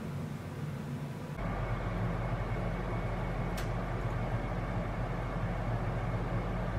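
Steady low mechanical hum of room noise, changing abruptly to a louder, deeper hum about a second and a half in, with a single faint click about three and a half seconds in.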